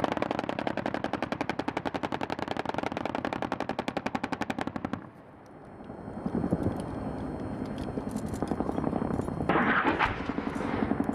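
A long burst of rapid automatic gunfire, a steady stream of about ten shots a second, that stops about five seconds in. A rumbling follows, with more sharp reports near the end.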